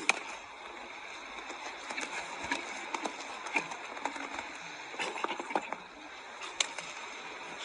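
A horse's hooves striking the ground during a show-jumping round: sharp, irregular knocks over steady background noise.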